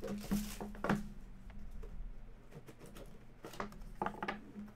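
Plastic shrink-wrap crinkling and tearing as it is pulled off a sealed trading-card box, with a few short handling knocks of the box near the end.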